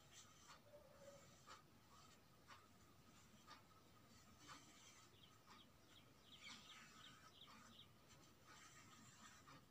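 Near silence: faint scratching of a pencil drawing a cutting outline on a stiff buckram piece, with faint ticks about once a second.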